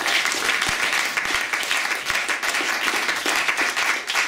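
A small audience applauding: many people clapping their hands together steadily.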